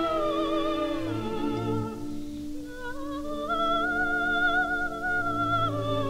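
Coloratura soprano singing with orchestra, from a 1934 Victor Red Seal 78 rpm record. A long note with vibrato slides down about a second in, climbs back up around the middle and is held again over the orchestra.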